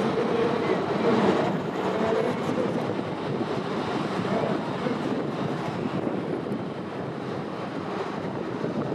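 Airbus A330-200F freighter's jet engines on landing approach: a steady rushing rumble with a few faint tones in it, easing slightly toward the end as the jet touches down.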